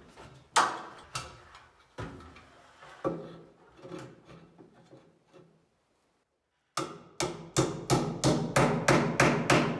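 Hammer nailing an electrical light box to the side of a wooden ceiling joist. A few blows about a second apart, a brief dropout, then a quick run of about three blows a second near the end.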